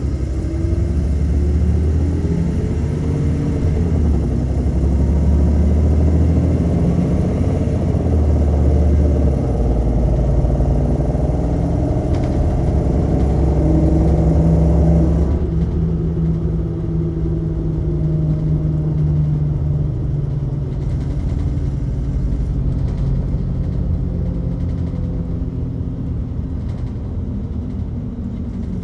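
MAN Lion's City LE (A78) city bus with a ZF Ecolife automatic gearbox, heard from on board under way. For about fifteen seconds the engine pulls and its tone rises in pitch as the bus accelerates. Then the bus eases off suddenly and runs on lower and steadier.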